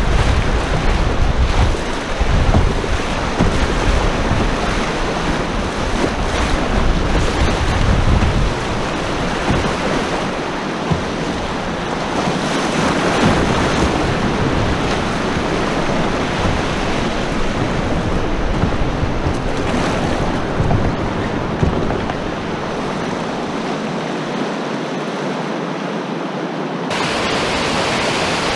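Rushing whitewater of a glacial river's rapids heard from a canoe running them, with wind gusting on the microphone during roughly the first eight seconds. Near the end the sound switches abruptly to a steadier rush of the rapids heard from the riverbank.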